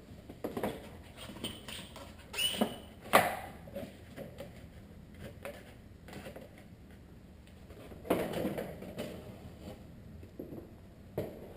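Scattered knocks, clicks and scrapes of a Honda Accord's plastic front bumper cover being handled and fitted back in place. A short squeak comes about two and a half seconds in, the loudest knock about three seconds in, and a longer scrape near the end.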